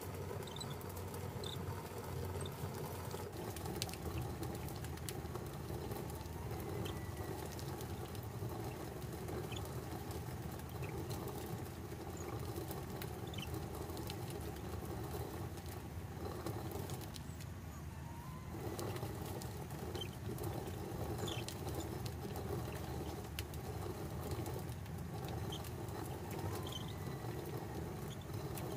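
Hand-turned stone quern grinding dried corn: the upper millstone is rotated by its wooden handle on the lower stone, making a steady, gritty grinding of kernels being milled between stone. It eases briefly about two-thirds of the way through.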